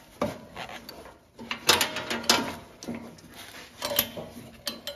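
Hydraulic quick-connect couplers being pushed onto the auxiliary hydraulic ports of a Ventrac tractor, giving a series of sharp metallic clicks and clunks as the fittings are worked on.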